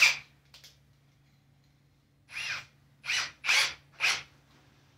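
Cordless drill boring into a plywood wall in short bursts: one burst right at the start, then four quick ones between about two and four seconds in.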